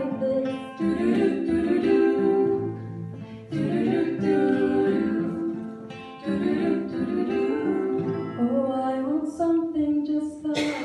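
Vocal ensemble singing in close harmony over a strummed acoustic guitar.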